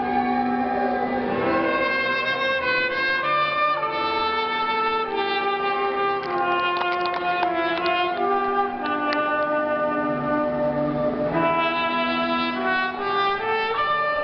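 Clarinet playing a bridal processional melody in a series of held notes.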